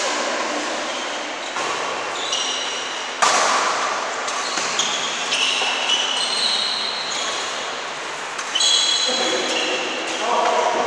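Badminton rally: rackets striking the shuttlecock several times, with sneakers squeaking sharply on the court floor in between as the players lunge and shift.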